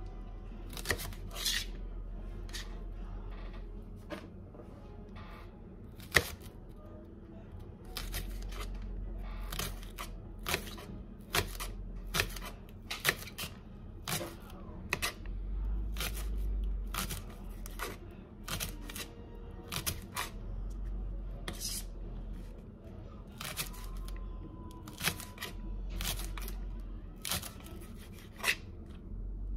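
Chef's knife slicing green onions on a plastic cutting board: a run of sharp taps of the blade striking the board, at an uneven pace of roughly one or two a second.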